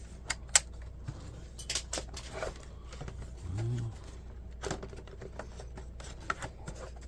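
Scattered sharp clicks and taps of plastic and small metal parts as an old Dell laptop is handled and pried apart during disassembly. A brief low hum-like sound comes about halfway through.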